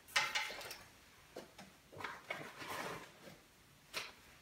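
Rustling of soft bikepacking gear bags being handled and a water bladder set down on a table, in a few short bursts: the loudest just after the start, another about two seconds in, and a short tap near the end.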